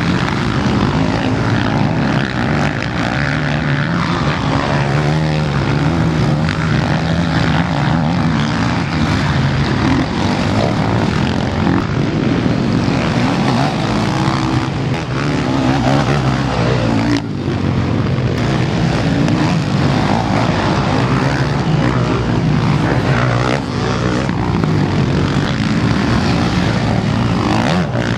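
MX1-class motocross bikes racing, their engines revving up and falling back over and over as the riders accelerate, shift and pass close by, with other bikes' engines running behind.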